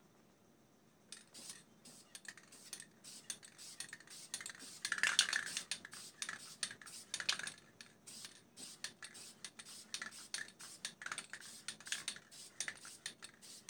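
An aerosol spray paint can being handled and shaken: irregular sharp clicks and rattles, starting about a second in, with a louder burst of rattling about five seconds in.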